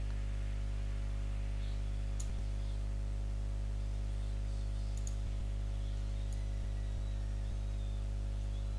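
Steady low hum under a few faint computer mouse clicks, spaced a couple of seconds apart, as shapes are selected by dragging.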